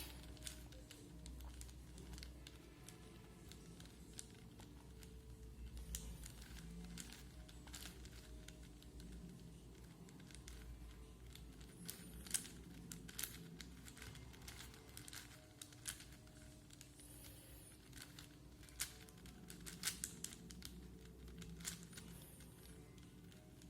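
Plastic 4x4 Rubik's cube being turned by hand: layers clicking and scraping as they rotate, in quick irregular runs with a few sharper clicks.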